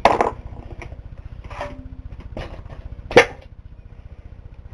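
Several sharp knocks and clanks of metal parts and tools on a Briggs & Stratton engine being taken apart at the cylinder head, the loudest a little past three seconds in. Under them runs a steady low pulsing hum.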